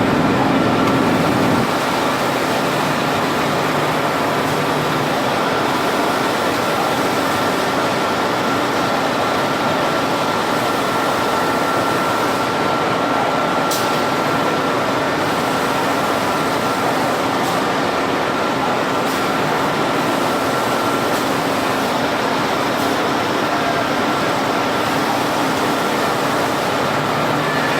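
Excitech CNC machine running: a steady whirring noise with a high, even whine held throughout, and a single sharp click about fourteen seconds in.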